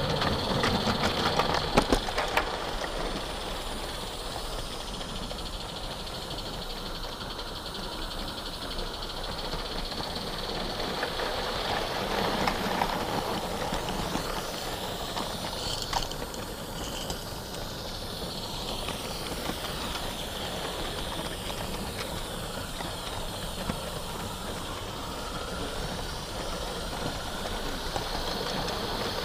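A 16mm-scale live-steam garden-railway train running on 32 mm gauge track: the wagons' wheels rattle along the rails under a steady steam hiss from the small locomotive, with a quick run of clicks in the first couple of seconds.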